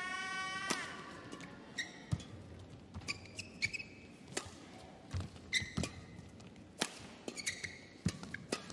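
Badminton rally: rackets strike the shuttlecock with sharp cracks about once a second, and players' shoes squeak briefly on the court mat between shots.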